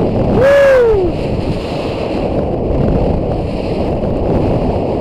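Small boat pounding through rough, wind-driven chop: a steady rush of wind and water. About half a second in comes a loud splash of spray, together with a short whoop that rises and then falls in pitch.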